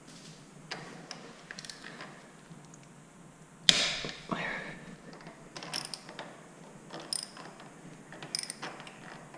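Hand tool on the 10 mm bolt of a motorcycle's gear shift lever, making bursts of ratcheting clicks as the bolt is worked loose. There is one sharp knock a little under four seconds in.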